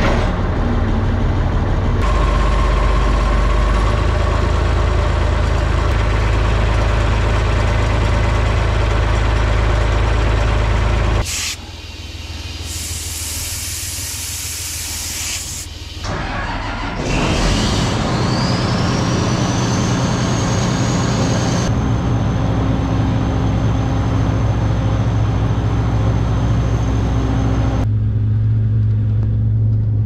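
John Deere combine's diesel engine running steadily, just after starting. About halfway through it drops in level while a hiss sounds for a few seconds, then a high whine rises in pitch and holds as the engine runs on.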